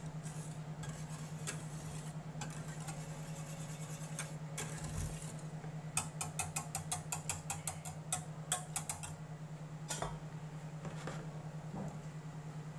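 Wire whisk stirring thick white sauce in a stainless steel saucepan, its wires ticking against the side of the pan, with a quick run of about five or six taps a second in the middle. One sharper knock comes near the end, and a steady low hum runs underneath.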